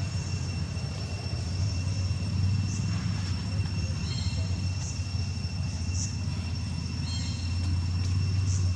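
A steady low rumble under a constant high-pitched insect drone, with short high chirps about once a second.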